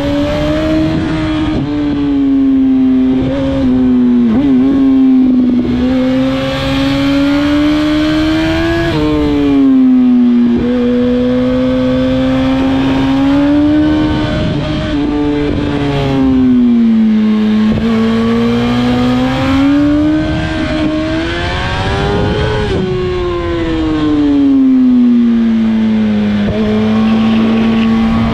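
2007 Yamaha R1's inline-four engine running hard under the rider, its pitch climbing and falling again and again as the throttle is opened and closed, with sharper changes about nine seconds in and about two-thirds of the way through.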